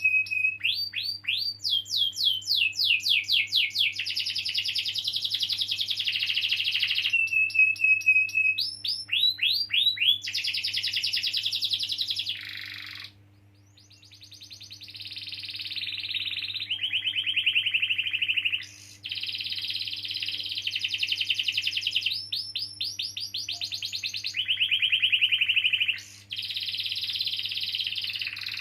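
Domestic canary singing a long, continuous rolling song. Rapid trills and rolls change pattern every few seconds, with short held whistle notes between them and one brief pause about halfway through.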